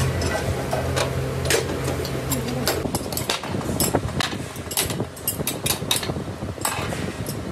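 Metal clinks, knocks and scrapes of steel rods and mould parts being worked on a cast-iron piston mould, a run of sharp clanks thickest in the second half. Under them a steady machine hum stops about three seconds in.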